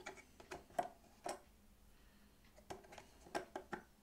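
Light clicks and taps of hands handling a miniature dollhouse and its small pieces, a few at a time, with a quick cluster near the end.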